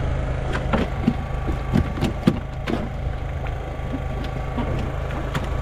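Fishing boat's engine running with a steady low hum, with a series of sharp clicks and knocks over the first three seconds or so.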